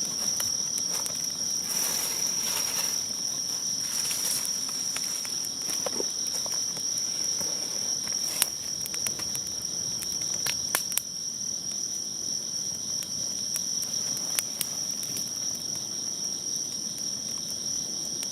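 Insects chirring in one steady high-pitched drone, with scattered sharp crackles and a few brief rustling bursts from a small newly lit fire of leaves and tissue.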